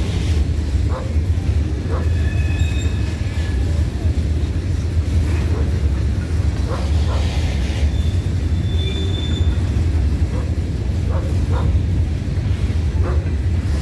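Covered hopper cars of a freight train rolling past at close range: a steady low rumble with irregular wheel clicks and knocks, and a few brief, faint high squeals from the wheels.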